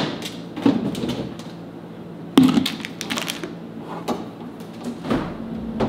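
Refrigerator handling: a few separate knocks and clicks as food and packaging are taken out of an open fridge, the loudest about two and a half seconds in. A low steady hum starts near the end.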